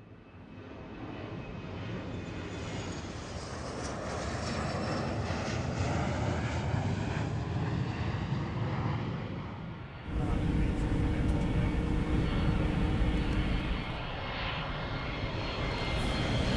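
Airliner jet engines. The noise of a takeoff swells over the first several seconds, then cuts abruptly about ten seconds in to a louder, deeper jet-engine sound with a steady whine as an airliner comes in to land.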